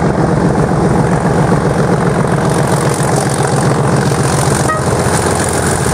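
Class 37 diesel locomotive approaching under power while hauling a train of loaded hopper wagons, its English Electric V12 engine running with a steady deep drone.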